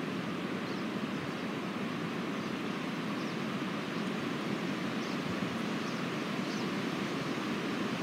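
Wind rushing steadily through conifer trees.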